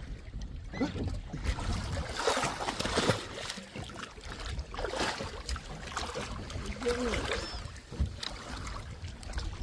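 Wind rumbling on the microphone outdoors, with irregular bursts of rustling and splashing-type noise and a few faint voices.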